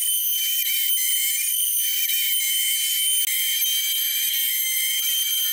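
800-watt CNC spindle of a 3018 Pro router running at speed with a steady high-pitched whine, its 3 mm end mill cutting coaster outlines out of an oak panel.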